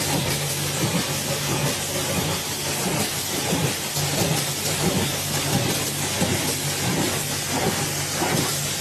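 Machinery running: a steady loud hiss over an even low engine hum, with faint irregular knocking.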